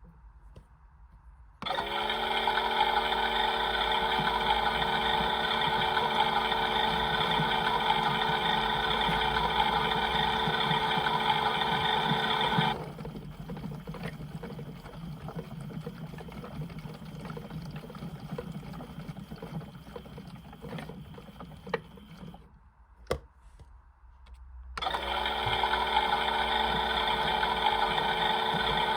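Small electric motor of a toy washing machine running its drum with a steady whine, starting about two seconds in and stopping suddenly after about eleven seconds. A quieter rustling stretch with a few clicks follows, then a brief near silence, and the motor starts again near the end.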